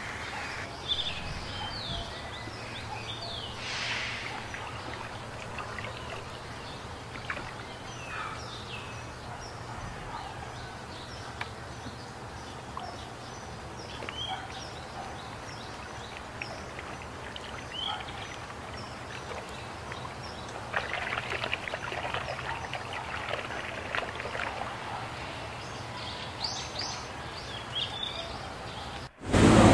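Water swishing and trickling as plastic toys are washed by hand in a tub of soapy water, with a busier stretch of splashing about two-thirds of the way through. Small birds chirp now and then in the background. The sound cuts off suddenly just before the end.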